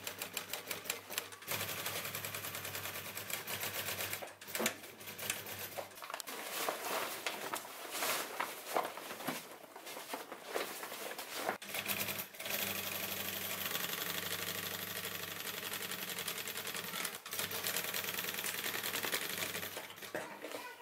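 Industrial sewing machine stitching through canvas in several runs with brief stops, its steady motor hum under rapid needle strokes. Around the middle, the stitching gives way to irregular clatter and rustling as the canvas bag is handled and repositioned.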